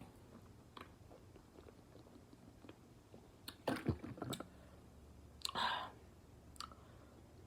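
Quiet handling noises: scattered small clicks and taps, with a louder cluster of clicks and knocks about halfway through and a short rustle about two seconds later.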